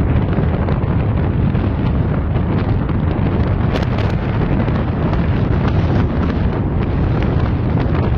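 Heavy wind buffeting on the microphone of an open-top Ford Mustang convertible driving fast, over a steady low rumble of road and engine noise, with a few faint clicks.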